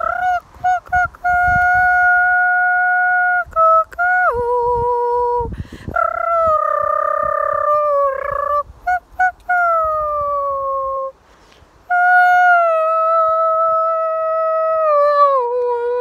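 A woman's voice singing long, wordless high notes, each held steady for a few seconds and then gliding down at the end, with short breaths between phrases.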